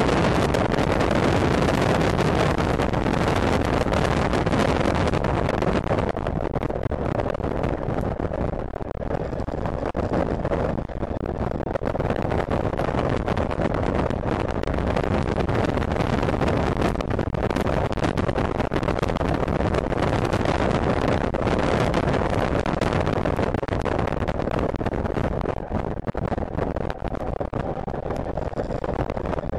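Wind rushing and buffeting over the onboard camera's microphone on a Zongshen electric racing motorcycle at speed. It is a steady noisy rush with no engine note, easing slightly a couple of times.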